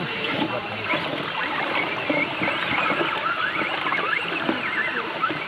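Shallow rocky stream babbling and gurgling, with an RC crawler's tyres splashing through the water.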